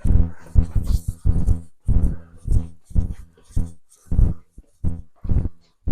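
1972 Chevrolet Cheyenne Super's engine cranking slowly on its starter, about two labouring turns a second, without catching. The starter is short of cranking power from a low battery.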